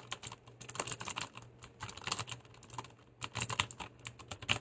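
Typing on a Leopold mechanical keyboard with clicky Cherry MX Blue switches: a quick, uneven run of sharp key clicks.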